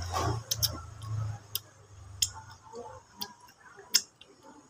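Close-up eating sounds while eating crab: a string of sharp clicks and smacks, about one every half second to second, from mouth, fingers and crab shell. A low hum runs under the first second and a half.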